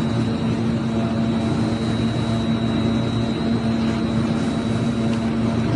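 Industrial plastic-processing machine running steadily: a constant hum with a thin high-pitched whine above it.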